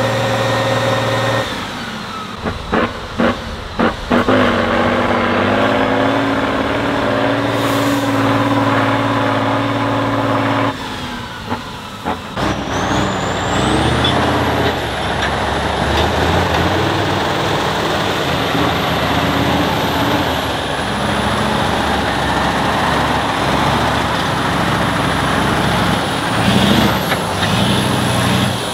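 Heavy off-road trial truck's diesel engine running and revving, with a few sharp knocks about three seconds in. From about halfway a thin high whine rises and then holds over the engine under load.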